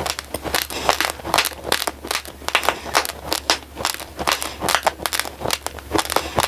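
Close-miked crunching of raw glutinous rice grains being chewed: an irregular run of sharp, crackly cracks, several a second.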